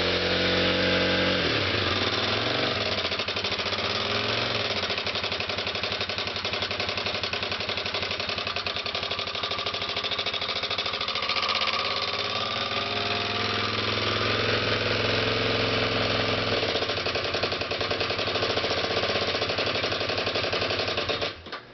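2006 Kawasaki KLX250S single-cylinder four-stroke engine running at idle, its revs dropping about a second in, with the rough, horrible-sounding noise its owner is trying to trace. He places it around the top end rather than the crank, though the valves have already been checked. The engine cuts off just before the end.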